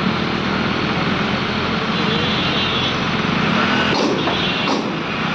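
Diesel engine of an ACE hydra 12XW pick-and-carry crane running steadily, with a few short sharp knocks about four seconds in.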